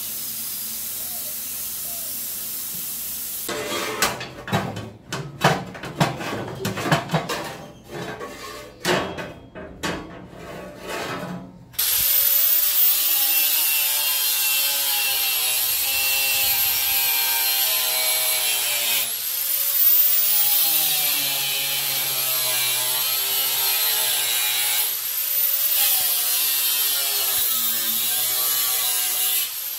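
A steady hiss, then several seconds of irregular metal clanks and scrapes. About twelve seconds in, an angle grinder starts up and cuts through a thin curved metal strip, its high whine sagging in pitch under load and climbing again as the cut eases, three times over.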